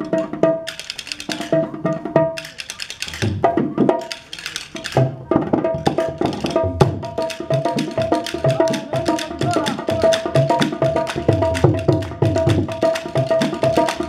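Rajasthani wooden castanets (khartal) clattering in fast, dense rhythmic rolls, with a steady held tone sounding along. The playing grows busier and louder about five seconds in.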